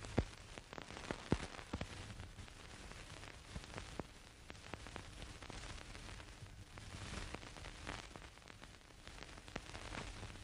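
Faint hiss with scattered clicks and crackles and a steady low hum: the surface noise of an old 1930s optical film soundtrack in a pause without dialogue or music.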